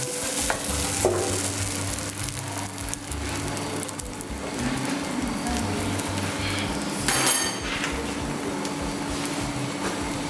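Food sizzling as it fries in a pan, with a brief clatter about seven seconds in, over background music.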